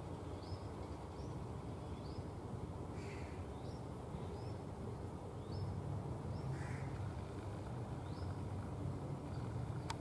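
Birds outdoors: a small bird repeats short, high, rising chirps about once or twice a second, and two short harsh, crow-like calls come about three and seven seconds in. Under them a steady low rumble grows louder about halfway, and a sharp click sounds just before the end.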